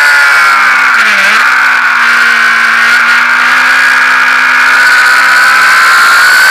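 Sports motorcycle engine running at high revs on a race track, heard from the bike itself. Its pitch dips briefly about a second in, holds steady through the corner, then rises near the end as the bike picks up speed.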